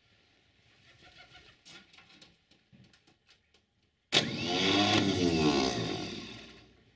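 Starter motor of a UTB-Fiat 445 DT tractor's diesel engine cranking it at about −5 °C: a sharp click about four seconds in, then about two and a half seconds of cranking that dies away without the engine catching, a failed cold-start attempt.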